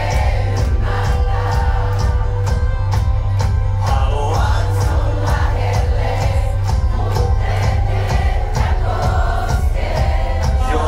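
Live rock band playing loud over a club PA: a steady drum beat, heavy bass and guitars, with many voices singing.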